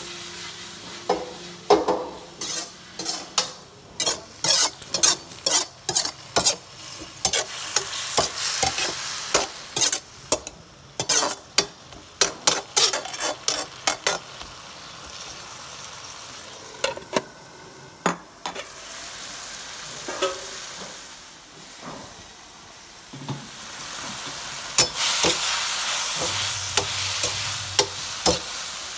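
Sliced bamboo shoots stir-frying in a wok. For the first half a metal spatula scrapes and clanks against the pan in quick strokes over steady sizzling; the sizzle grows louder about three-quarters of the way through.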